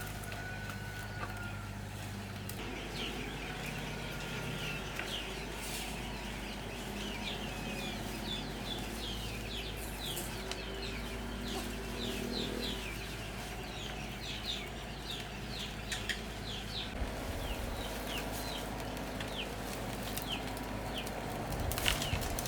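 Birds chirping: many short, high, falling chirps in quick succession over a low steady hum.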